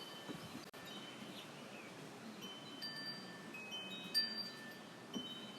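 Wind chimes ringing in the breeze: several clear, steady tones at different pitches sounding at random and overlapping, with one brighter strike about four seconds in.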